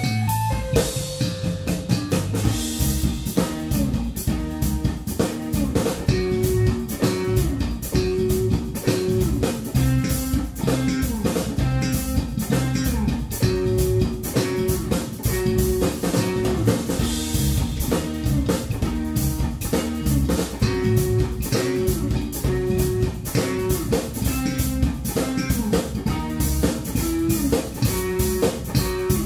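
Live instrumental funk by a guitar, bass and drums trio: a Fender electric guitar through a Fender amp, electric bass through a Markbass amp, and a Tama drum kit with Bosphorus cymbals, playing together to a steady beat.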